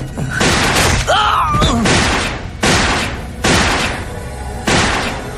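Cartoon fight sound effects: a rapid series of about six heavy impact hits, each fading out after its blow, over background music, with a short cry about a second in.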